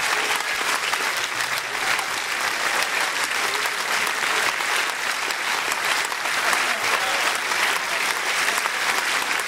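Large audience applauding steadily, a dense, unbroken clapping.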